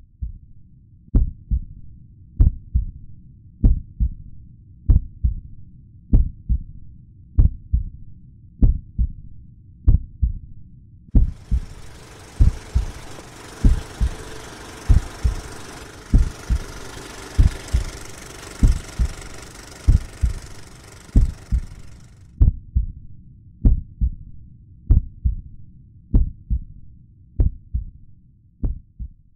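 Slow, low heartbeat, a lub-dub about every one and a quarter seconds. From about eleven to twenty-two seconds in, a steady whirring hiss plays over it.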